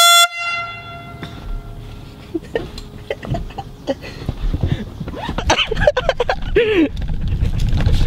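Air horn giving one short, very loud blast, a single steady pitch with many overtones, that rings on faintly for about a second after it stops.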